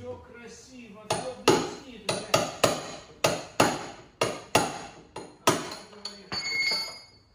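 Hammer striking car body metal, about a dozen ringing blows at roughly two a second, followed by a short high squeal near the end.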